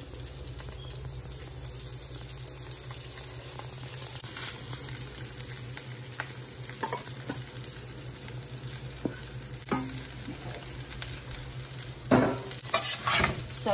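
Steamed rice going into a wok of hot oil and garlic, sizzling faintly, while a metal spatula scrapes rice out of a stainless-steel bowl and now and then clinks against the metal. The scraping and knocking get louder near the end, over a steady low hum.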